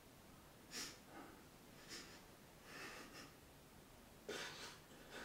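A woman crying quietly: about four short, shaky breaths and sniffs, spread a second or so apart.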